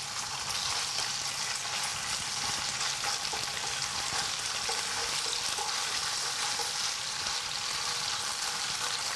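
Sliced pork sizzling in hot oil in a non-stick wok, a steady frying hiss, while wooden chopsticks stir the slices apart.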